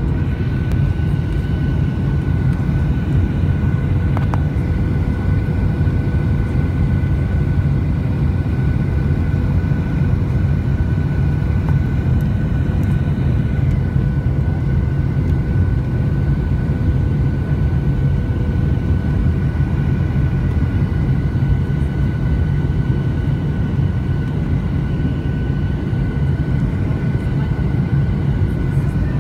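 Cabin noise of a twin-engine jet airliner heard from a window seat beside the wing while descending on approach to landing: a steady heavy rumble of engines and airflow with a thin, steady engine whine over it.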